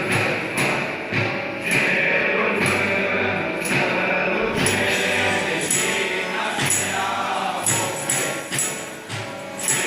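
A group of carolers singing a Romanian colindă together. From about halfway through, a rhythmic jingling beats in time with the singing.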